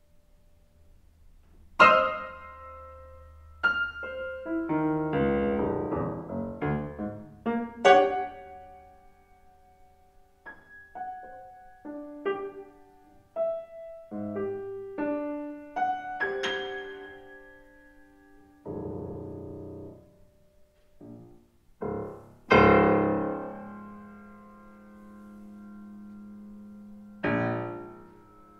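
Solo grand piano playing sparse contemporary music: isolated notes and chords struck at widely varying loudness, separated by pauses and left to ring and die away. A busier cluster of notes comes a few seconds in, and a loud chord struck past the middle rings on for several seconds.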